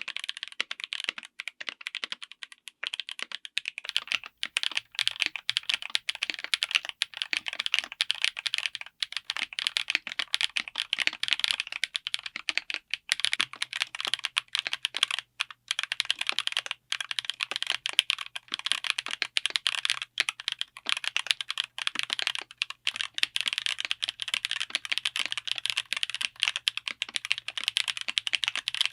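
Rapid, continuous typing on a mechanical keyboard fitted with tactile switches: a dense stream of sharp key clicks and bottom-outs.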